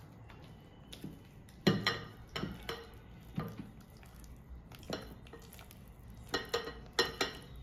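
A mixing utensil knocking and clinking against the bowl as cake batter is stirred: irregular short knocks with a brief ring, some in quick pairs, the loudest about two seconds in and again near the end.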